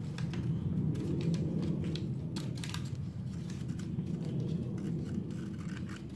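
Scissors snipping through a paper gasket template, a run of short crisp cuts, over a steady low background hum.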